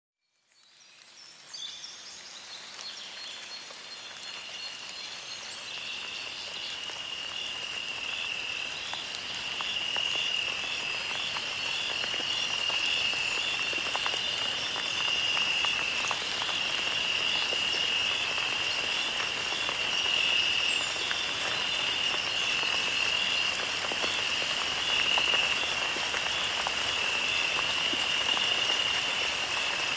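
A steady high-pitched chirring with an even pulsing beat over a constant hiss, fading in from silence over the first few seconds.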